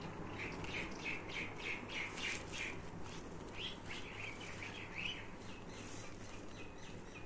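Bird chirping in a quick run of short repeated notes, about four a second, then a second, more varied run a little later, over a low steady hum.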